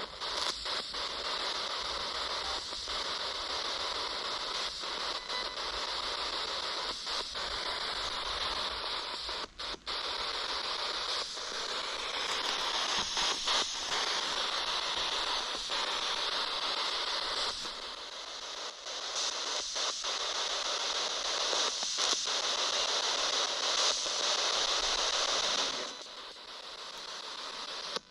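Spirit box sweeping through radio frequencies, giving a steady hiss of static broken now and then by short dropouts.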